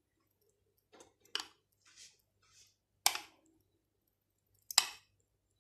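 A spoon clicking against a bowl as mayo sauce is scooped out and drizzled: three sharp clicks about a second and a half apart, with a few fainter ones between.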